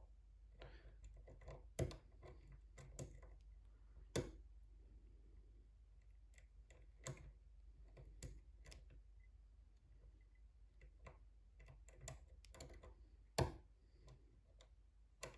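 Lock pick and tension wrench working the pins inside a brass challenge lock: scattered faint irregular clicks and scrapes, with a louder click about thirteen seconds in. The feedback is crunchy, which the picker puts down to threading in the pin chambers.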